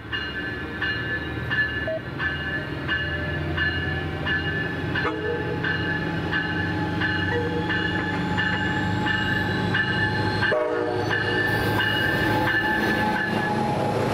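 Passenger train running past with a steady low rumble, under a railroad grade-crossing bell ringing about twice a second that stops near the end. From about five seconds in, a whine from the train slowly rises in pitch as it gathers speed.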